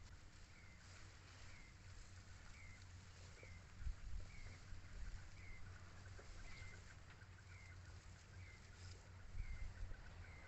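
Faint outdoor ambience: a bird repeats a short, high, slightly falling call about once a second over a low rumble, with a couple of soft low bumps.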